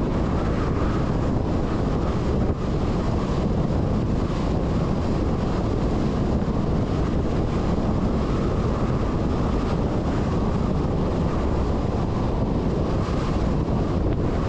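Steady, low wind noise on a microphone mounted on top of a MAN 4x4 truck's cab while the truck drives along a sealed road, with the truck's running noise mixed underneath.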